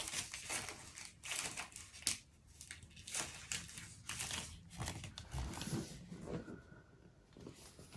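Outer wrapping of a MacBook Air box being torn open at its pull tab and pulled off: a quick run of tearing and crinkling rustles that thins out near the end.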